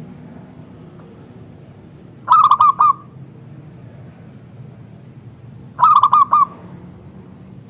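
Zebra dove (perkutut) cooing: two short phrases, each of about four quick notes, roughly three and a half seconds apart, over a faint low background hum.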